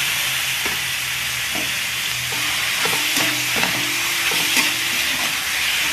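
Raw pork cubes sizzling steadily in hot oil in a metal wok, with scattered scrapes and clicks as they are stirred.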